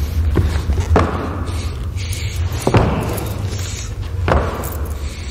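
Heavy thuds of blows in a film fight scene: four strikes a second or two apart, over a steady low rumble.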